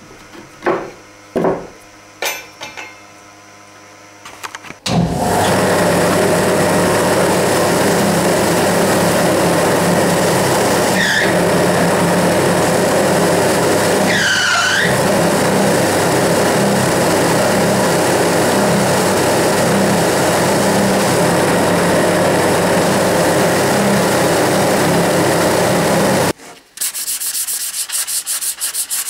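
Hand rubbing and sanding strokes on wood, then an electric power tool starts and runs steadily for about twenty seconds, with a couple of brief squeaks, before cutting off suddenly. Quick rhythmic hand-sanding strokes follow near the end.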